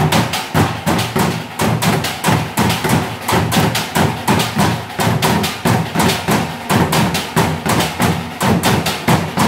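A group drumming on large plastic water jugs with sticks, playing together in a fast, steady rhythm.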